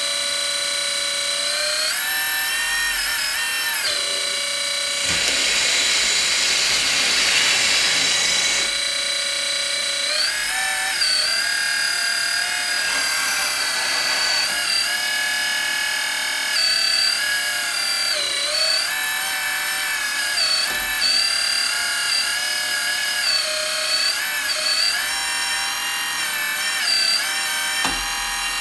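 Electric hydraulic pump of a 1/14 Kabolite K350 RC excavator whining steadily, its pitch dipping and recovering again and again as the boom, arm and bucket move under load. About five seconds in, a hiss joins for about three seconds.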